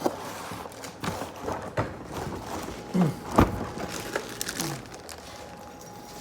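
Cardboard box and plastic packaging being handled, rustling and crinkling with scattered knocks as a robot vacuum is unboxed; the loudest is a sharp knock about three and a half seconds in.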